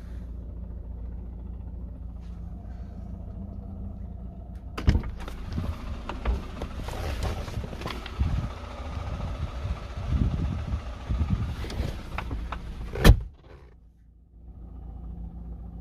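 Lada Vesta idling with a knocking rattle, which the owner traces to the clutch: it goes quiet when the clutch pedal is pressed. About five seconds in the sound grows louder and rougher, with irregular knocks, and it ends in a single loud bang near the end before the steady idle hum returns.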